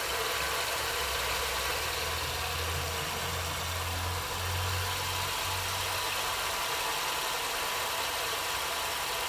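2011 Chevrolet Celta's VHCE four-cylinder engine idling steadily, making the strange noise the owner links to driving through flooded streets. A low hum swells from about two to six seconds in, then settles back.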